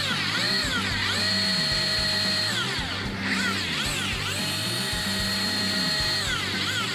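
Motor of an electric fishing reel whining as it winds a sabiki rig up, spinning up in pitch, holding steady, then winding down, in repeated short and longer bursts.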